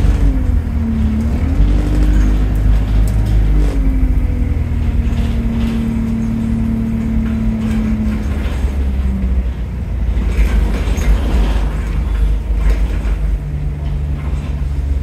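Arriva London bus ENX17 driving, heard on board: a steady deep engine rumble, with a whining drivetrain tone that dips and rises in pitch, holds level for a few seconds, then fades about nine seconds in.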